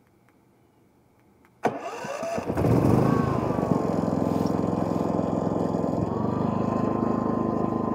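Predator 5000 inverter generator engine starting: a sudden crank about a second and a half in, then it catches and settles into a steady run.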